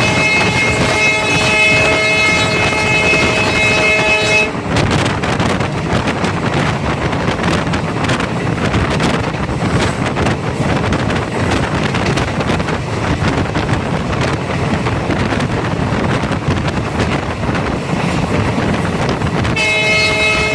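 A train horn sounding one long steady blast that cuts off about four and a half seconds in, leaving the rumble and rattle of the moving train; the horn starts again about a second before the end.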